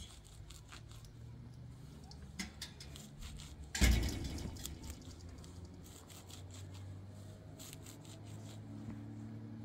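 Kitchen work sounds: scattered light clicks and taps, with one heavier thump about four seconds in, over a low steady hum.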